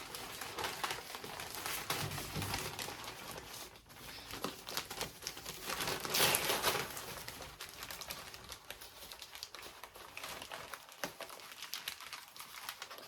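Packaging crinkling and rustling in hand as a shipped orchid is unwrapped, with scattered small clicks and a louder rustle about six seconds in.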